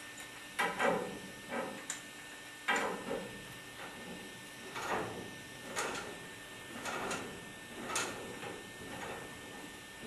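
A series of irregular knocks and scrapes, roughly one a second, from hand work at the top fittings of a gas water heater.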